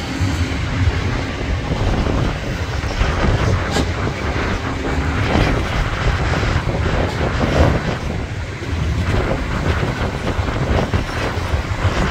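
Freight train of tank cars rolling past: a steady rumble of steel wheels on rail, with scattered clanks and clatter.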